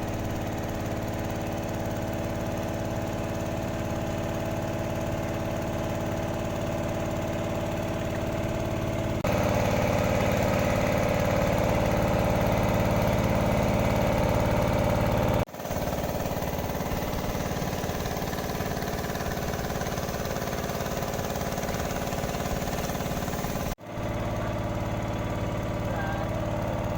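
Engine running steadily at a constant speed, with abrupt edit cuts about nine, fifteen and twenty-four seconds in, where the level and pitch jump slightly.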